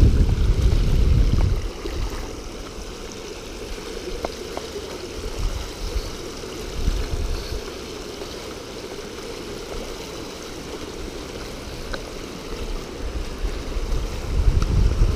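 Steady rush of river water flowing over and around a low concrete weir. Wind buffets the microphone with a low rumble in the first second or two and again near the end.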